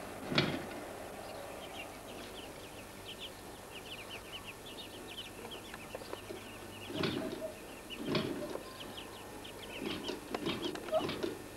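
Muscovy ducklings peeping: a rapid string of short, high peeps, thinning out later, with a few dull knocks in between.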